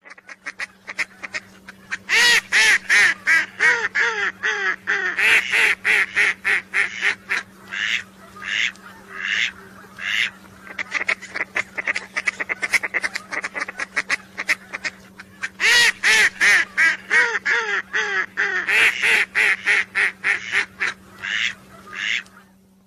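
Ducks calling in rapid, repeated quacking runs, in two long loud bouts with quieter calls between them, over a steady low hum.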